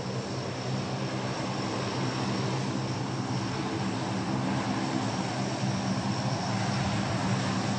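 Four-engine turboprop C-130 Hercules transport running with a steady droning hum, slowly growing a little louder.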